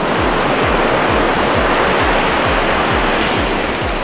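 Ocean surf washing onto the beach, a steady rushing noise that swells in the first seconds, over background music with a steady bass beat.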